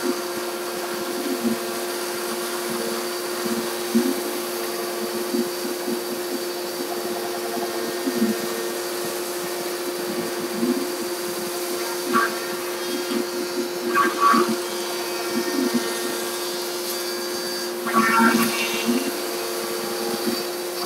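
A Stinger I CNC router's spindle motor and dust-collection vacuum running steadily while a 3/8-inch bit cuts circular passes in plastic. A few brief louder cutting bursts come about two-thirds of the way in and again near the end.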